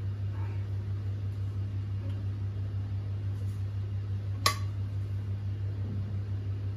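Steady low hum of a running kitchen appliance, with one sharp click about four and a half seconds in.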